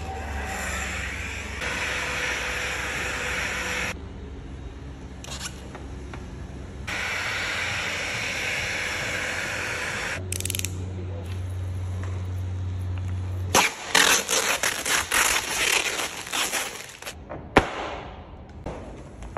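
Handheld heat gun blowing in two steady stretches of hiss, then a steady low hum. For the last several seconds, a run of sharp crackles and scrapes from vinyl wrap film being worked with a plastic squeegee.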